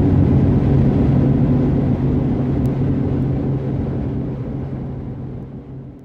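Steady low drone of a car travelling at highway speed, heard from inside the cabin, fading out over the last few seconds.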